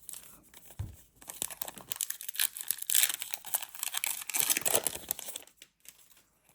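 Foil wrapper of a trading-card pack being torn open and crinkled, a dense crackling that builds to its loudest midway and stops about a second before the end.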